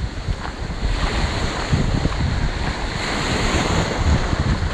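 Sea surf washing steadily, with wind gusting on the microphone in uneven low rumbles.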